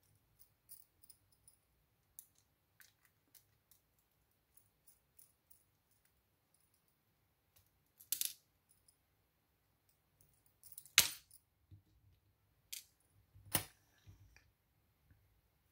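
Small metallic clicks and taps from a brass pin-tumbler lock cylinder and a small metal tool being handled while the lock is taken apart. A few louder clinks stand out, the loudest about eleven seconds in.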